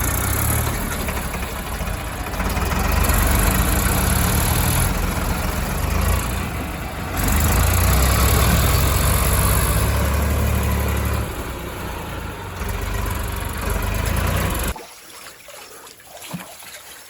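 Diesel engines of heavy farm and earthmoving machinery running, in a string of abruptly cut segments, with the loudest low-end rumble in the middle. The level drops sharply about two seconds before the end.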